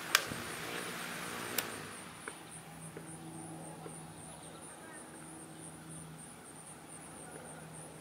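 12-inch Aloha Breeze oscillating table fan running, with two clicks of its top-mounted switch in the first two seconds. After the second click the rush of air fades as the fan slows, leaving a low motor hum.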